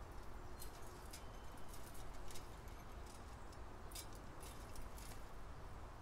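Light clicks and taps of a bird's feet and bill on a metal tube seed feeder as it flutters and clings to the perch, in short clusters about a second in, around two seconds, and between four and five seconds, over a steady low background rumble.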